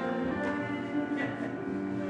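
Instrumental music: sustained chords whose notes change every second or so.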